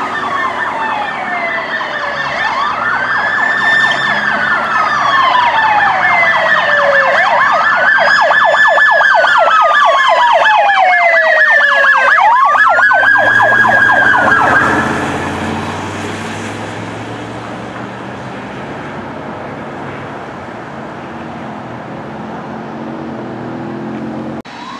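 Electronic emergency-vehicle sirens sounding together: a slow wail rising and falling every few seconds, a rapid yelp and a steady high tone. The sirens stop about fifteen seconds in, leaving the lower, steady noise of engines and tyres on the road.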